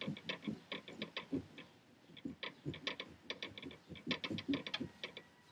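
Small hand-held pumpkin carving tool working into a pumpkin's rind: quick, irregular scratchy clicks, several a second, easing off briefly about two seconds in.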